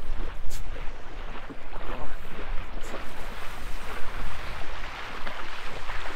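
Wind buffeting the microphone in a steady low rumble, over the wash of small waves breaking on the shore.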